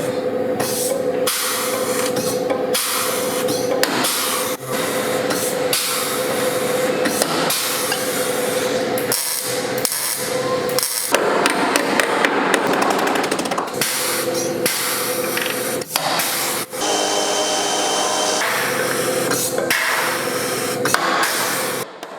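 Metalworking tools on a car's sheet-metal quarter panel: a continuous, loud working noise packed with sharp strikes, carrying a steady tone for about the first half, then changing character about halfway through.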